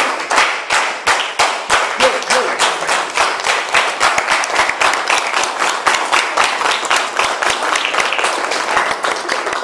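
Audience applauding, with one pair of hands clapping close to the microphone in a steady rhythm of about four to five claps a second.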